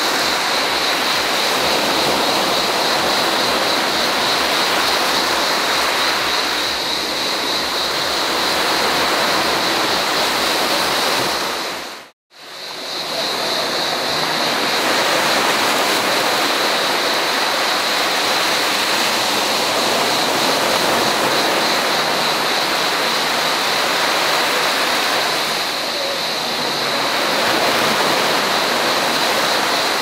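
Small sea waves breaking and washing up a sandy, rocky shore: a steady rush of surf with slow swells in loudness. A steady high-pitched buzz runs over it, and about twelve seconds in the sound briefly fades out at a cut and comes back.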